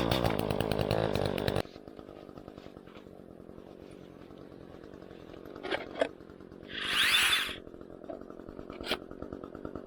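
Small two-stroke engine, likely a chainsaw, revved hard for about a second and a half, then dropping to a steady idle. A few sharp knocks and a short hiss about seven seconds in break into the idle.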